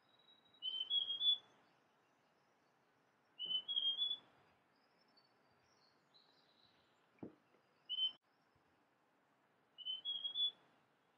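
Male large niltava (Niltava grandis) singing: three short phrases of three or four clear notes, each stepping up in pitch, about three seconds apart, with a single short note between the second and third.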